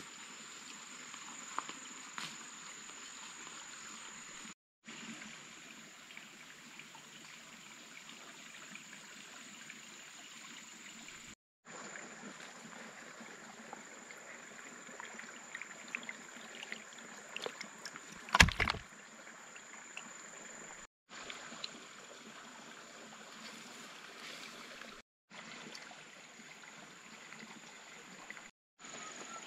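Water sloshing and trickling under a steady high chirring of insects, with one loud thump about eighteen seconds in. The sound drops out briefly several times.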